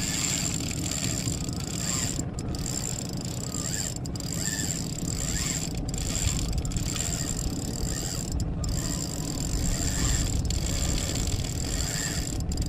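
Spinning reel's drag clicking steadily as a large catfish runs and pulls line off the spool against the brake.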